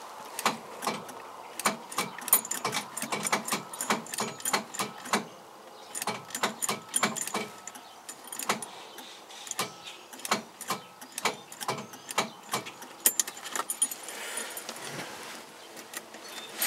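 Rapid, irregular metallic clicking from the 1973 Mazda RX3's starter circuit as the starter is tried, without the engine cranking. The clicking runs in spells, with short lulls about a third of the way in and near the end.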